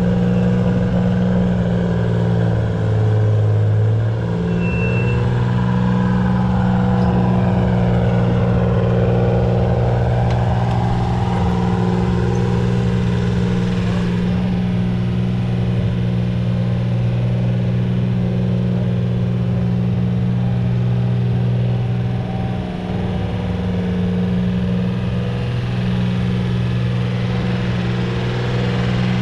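A motor vehicle's engine running steadily as a loud low drone, with small shifts in pitch as its speed changes a little.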